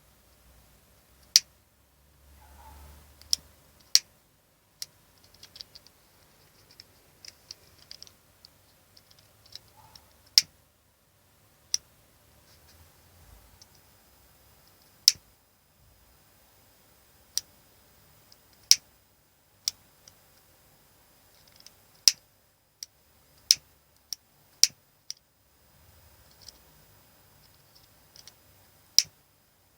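A lighter clicking over and over: sharp single clicks at uneven gaps of about one to two seconds, with faint handling rustle between some of them.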